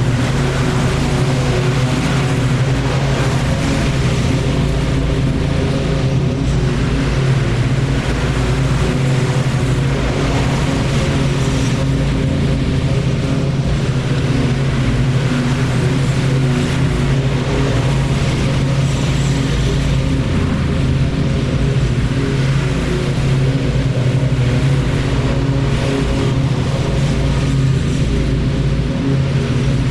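Lawn mower engine running steadily, its level unchanging throughout.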